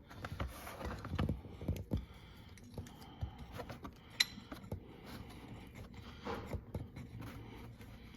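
Light clicks and short scrapes of small metal parts, washers and bolts, being handled and fitted by hand on a tow bar, with one sharper click about four seconds in.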